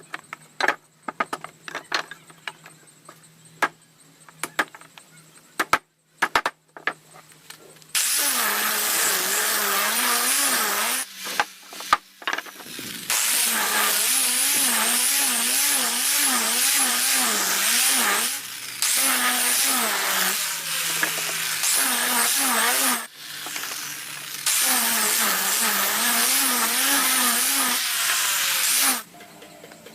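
Handheld electric power tool on wood, run in four long bursts with short pauses, its pitch wavering up and down about twice a second as it is worked. Scattered clicks and knocks of handling come before the first burst, about eight seconds in.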